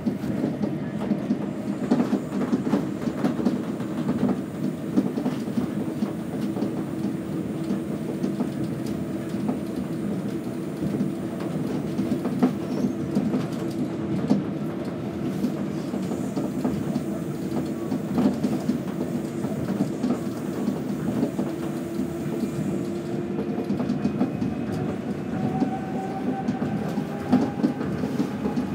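Tokyo Monorail train running at speed, heard inside the car: a steady rumble from its rubber tyres on the concrete guideway beam, broken by irregular knocks, with a faint motor whine that rises near the end.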